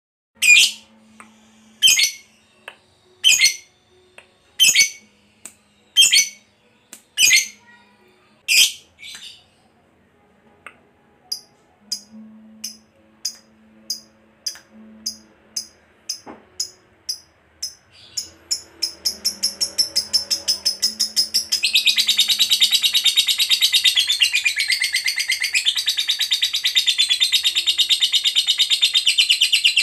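Lovebird calling: a run of loud sharp chirps about every second and a half, then quicker chirps that speed up and merge into a long, unbroken, fast chattering trill, the prolonged 'ngekek' that fanciers prize in a fighter lovebird.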